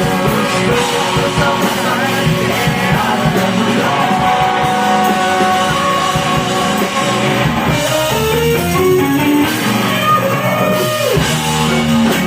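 Rock band playing live, with electric guitar, drum kit and a sung vocal line, loud and steady.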